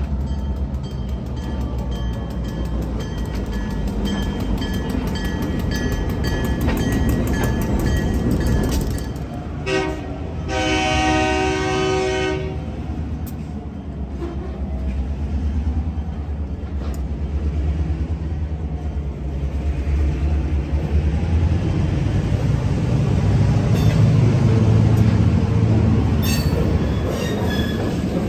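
Diesel switcher locomotive rumbling past at low speed on street-level tracks, sounding its horn once for about two and a half seconds around ten seconds in. Then the freight cars roll by with a heavier, louder low rumble and wheel clatter.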